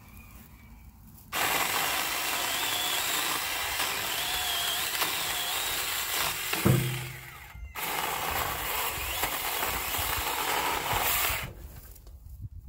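Saker 4-inch cordless mini chainsaw running and cutting through small branches. It starts about a second in, cuts out briefly past the middle with a low thump just before, then runs again until it stops near the end.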